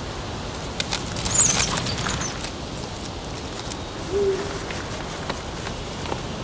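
Night forest ambience with an owl giving a single short, low hoot about four seconds in. Scattered clicks and a brief louder rustle with a high chirp come about a second and a half in.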